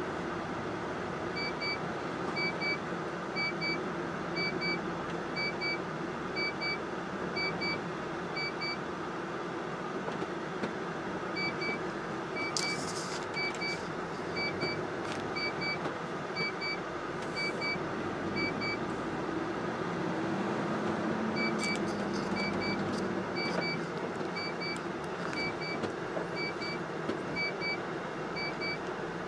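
Cab interior of a MAN TGS 40.480 truck on the move: steady engine and road noise. A dashboard warning beeper gives a short double beep about once a second, in three runs of several seconds each. A deeper engine drone swells for a few seconds about two-thirds of the way through, and there is a sharp click about 13 seconds in.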